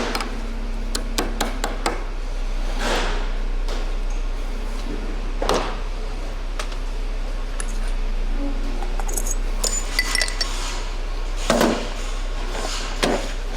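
Metal clinks and several heavier knocks from tools and CV axle parts as the joint is refitted to the axle shaft over its C-clip, with a brief metallic ringing about ten seconds in.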